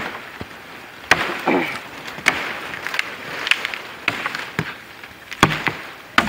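Cut bamboo pole being pulled out through a thicket: irregular sharp hollow knocks as it strikes other stems, about eight or nine of them, over rustling brush and leaves.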